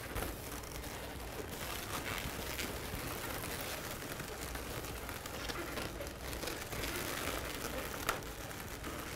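Soft rubbing and rustling of latex modelling balloons being handled and threaded through the sculpture, with a couple of faint taps over a steady background hiss.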